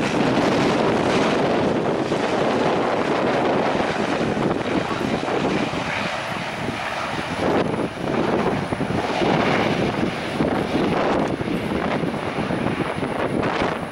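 Embraer EMB-120 Brasilia twin turboprop's engines and propellers running as it touches down and rolls out along the runway.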